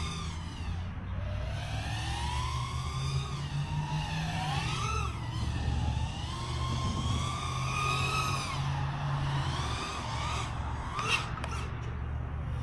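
5-inch FPV quadcopter's brushless motors and propellers whining, the pitch swooping up and down as the throttle changes, with a couple of quick sharp punches near the end.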